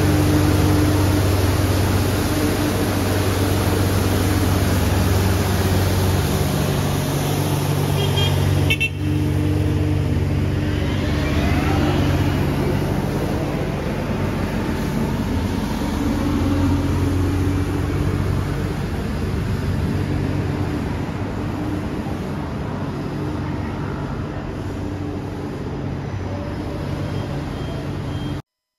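Steady low hum of a vehicle engine over a haze of street noise, with a brief break about nine seconds in. It cuts off abruptly shortly before the end.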